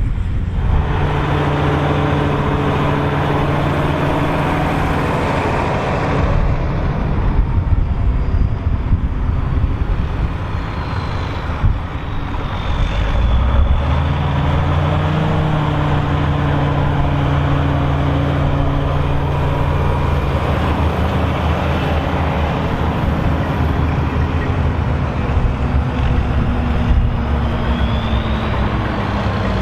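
Volvo BM 814 tractor's diesel engine running hard under load while pulling a six-furrow plough. The engine note is steady, shifting in pitch a few times along the way.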